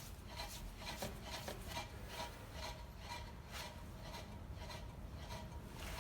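Wheel bearing being spun by hand, giving a rhythmic rasping rub about two to three times a second that spaces out slightly as the wheel slows: the roughness of a worn wheel bearing.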